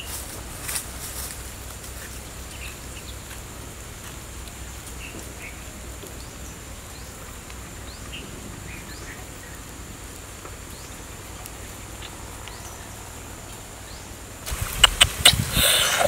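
Quiet outdoor background with a thin steady high tone and a few faint chirps. About fourteen and a half seconds in, close, sharp crackling and snapping of dry plant fibre being torn apart by hand.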